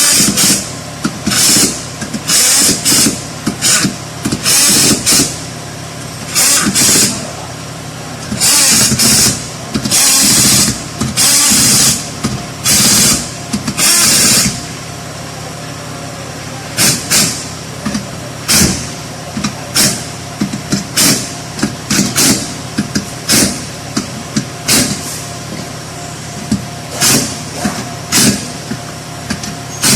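Impact wrench run in repeated bursts, tightening the bolts on a 6L80 automatic transmission: longer bursts of up to a second in the first half, then shorter, quicker pulses, over a steady low hum.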